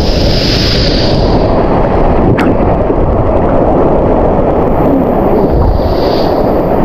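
Waterfall pouring into a rocky plunge pool close by: a loud, steady rush of falling water.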